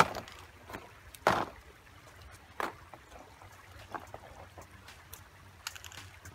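Short hissing bursts from an aerosol spray paint can, the loudest about a second in, over a faint steady low hum.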